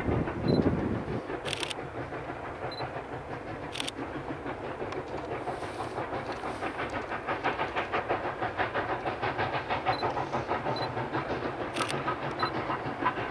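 Narrow-gauge steam train running, with a fast, even rhythmic beat that grows stronger over the second half.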